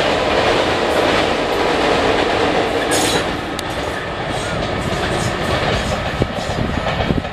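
Shatabdi Express passenger train, its rear WAP-4 electric locomotive pushing, crossing a steel girder bridge: a steady, loud rumble of wheels on rails with a few sharp clicks. It eases off a little after a few seconds as the train moves away.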